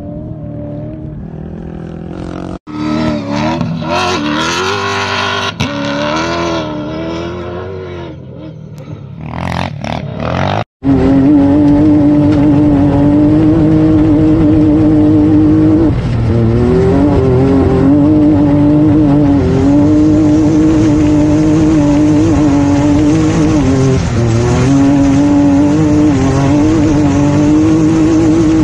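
A rally car's engine revving hard as it passes close by, its note rising and falling. About ten seconds in, the sound cuts to a rally vehicle's engine heard loud and close from onboard at speed, with a steady note that dips briefly twice.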